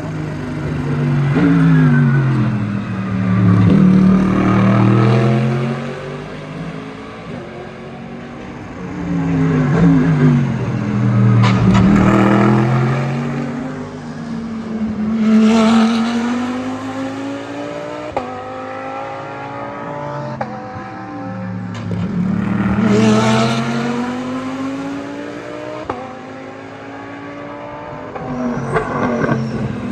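Race cars passing one after another, four or five in turn, each engine note rising through its gears and falling away as the car goes by.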